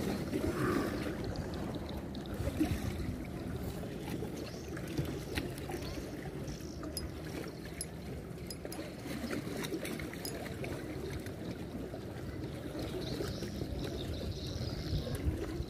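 Steady low rumble of water, with a few faint clicks scattered through.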